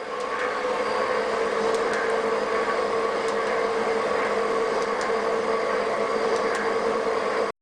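Klopp 425 metal shaper running a finishing pass: a steady machine hum with one strong held tone and a few faint ticks now and then. It cuts off abruptly near the end.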